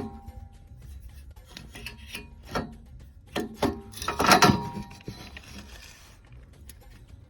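Scraping and several irregular knocks of parts and tools being handled during repair work, the loudest cluster a little past the middle, over faint background music.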